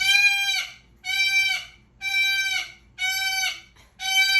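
A pet parrot calling over and over: five evenly spaced, identical high-pitched calls, about one a second, each held for roughly half a second and dipping at its end.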